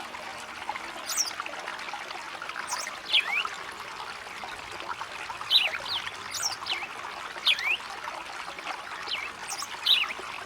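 Songbird repeating a short, high-pitched phrase of quick downward-slurred notes every couple of seconds, over the steady trickle of running water.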